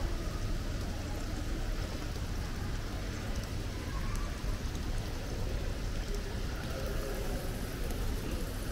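Indoor water feature: a column of water falling into a steel basin, splashing steadily, over a steady low rumble.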